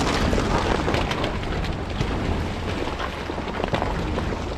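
Toyota 4x4 crawling over a wet, snowy trail: low engine and road rumble under a dense rush of tyres crunching and splashing through slush, ice and rocks, with wind buffeting the microphone held outside the window.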